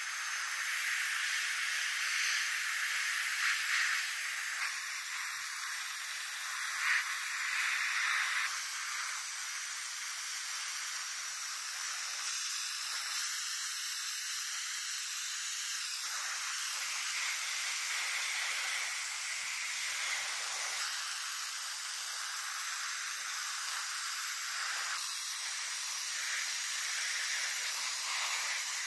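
Handheld sandblasting gun blasting grit at a small rusty model car body: a steady high hiss of compressed air and abrasive that brightens and dulls a little as the nozzle moves, stripping rust and paint down to bare grey.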